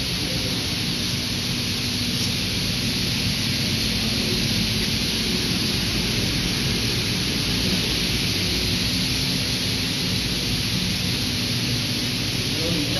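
Fresh noodle packaging machine running: a steady hiss with a faint low hum underneath.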